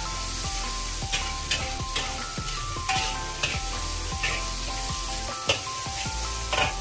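Vegetables and crumbled tofu sizzling in hot oil in a wok while a metal spatula stirs them, scraping and clicking against the wok at irregular intervals.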